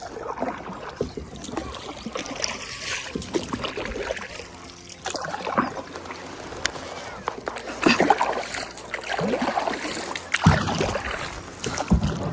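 Kayak paddle dipping into lake water, with irregular splashes and drips between strokes.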